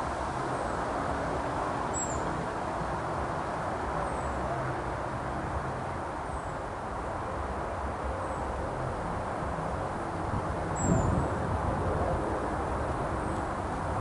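Steady outdoor background rumble with a low bump of noise about eleven seconds in, over which a small bird gives short, thin, high call notes that slide down in pitch, one every second or two.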